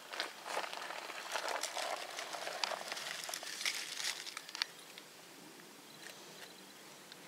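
Dry leaves and grass crinkling and crackling as they are bunched by hand around a glowing char-cloth ember to make a tinder nest for lighting a fire. It is a run of crisp rustles and crackles for about four and a half seconds, then it goes quieter.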